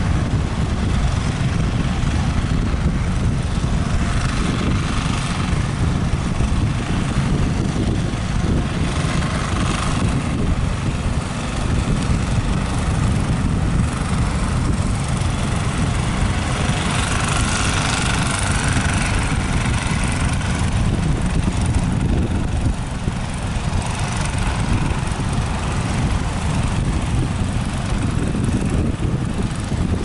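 Strong wind buffeting the microphone as a loud, steady low rumble, with the hiss of breaking surf swelling now and then, most strongly a little past the middle.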